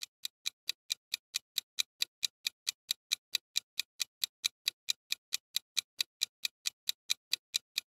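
Clock-ticking sound effect marking a quiz countdown timer: even, sharp ticks, about four a second.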